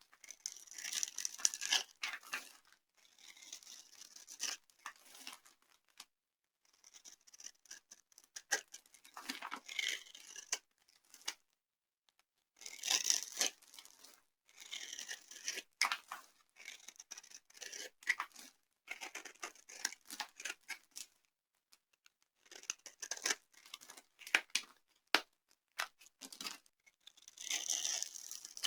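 Dry soap crunching and crumbling as it is crushed, in bouts of dense, crisp crackling with short pauses between them.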